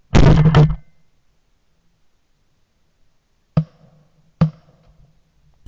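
20-gauge shotgun fired at a dove, one loud report in the first second, followed by two short, sharp knocks about three and a half and four and a half seconds in.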